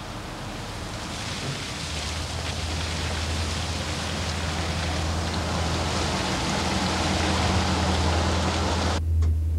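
British Rail Class 150 Sprinter diesel multiple unit running, a low engine drone under a rushing noise, growing steadily louder. Near the end the rushing cuts off, leaving the low drone.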